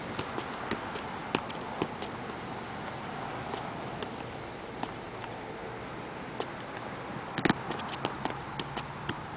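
Soccer ball tapping off a shoe in irregular single touches as it is juggled, over a steady hiss; near the end a quicker run of louder taps.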